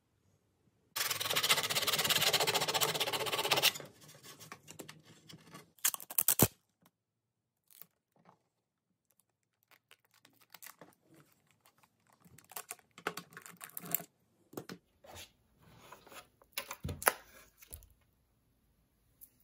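Hand work on a plastic part: a loud rasping, tearing noise about a second in that lasts about three seconds, then scattered clicks, scrapes and rustles of handling.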